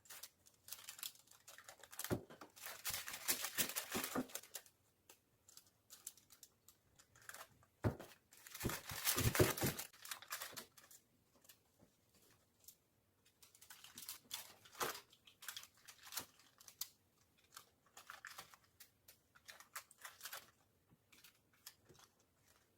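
Plastic packaging being handled, crinkling and tearing in irregular bursts. The loudest stretches come about two to four seconds in and again around nine seconds, with lighter rustles later.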